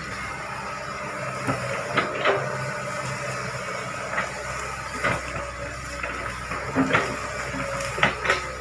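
Hitachi Zaxis 110 hydraulic excavator's diesel engine running steadily under load as the boom swings and the bucket works through palm debris and earth, with sharp knocks about eight times.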